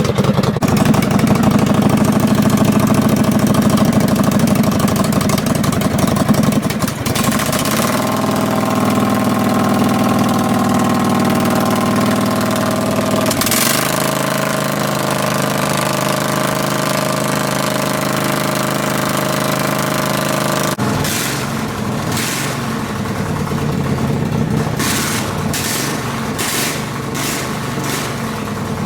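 Craftsman riding mower's twin-cylinder engine running straight-piped with the muffler removed, loud and raw, its note shifting a few times as the speed changes. In the last several seconds a run of sharp cracks sounds over the engine.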